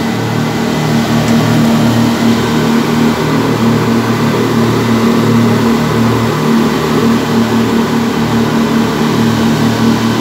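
Fast passenger boat's engines running steadily, heard as a loud, even drone with a strong low hum inside the enclosed passenger cabin.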